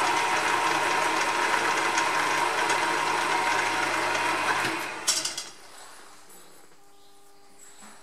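Hare and Forbes HM48 milling machine running an end mill through a cut, a steady mechanical whir with a hum. It stops about four and a half seconds in, followed by a brief clatter.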